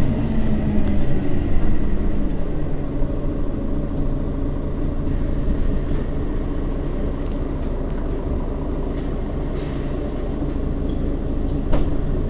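Mercedes-Benz Citaro city bus's engine idling steadily while the bus stands at a stop, with a single short click near the end.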